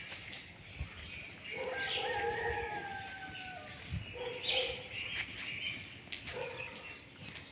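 An animal's drawn-out call, falling slightly at its end, then a few shorter calls, with small birds chirping throughout.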